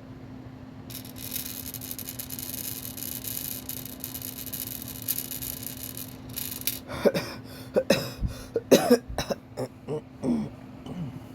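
A woman's long, drawn breath lasting about five seconds, then a run of short coughs, as a breathing exercise to bring up a cough while recovering from tummy tuck and abdominal muscle repair surgery.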